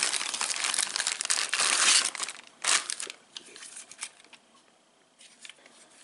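Clear plastic bag crinkling as a door lock is unwrapped from it. The crinkling is dense for about the first two seconds, with one more short rustle about a second later, then only a few faint handling clicks.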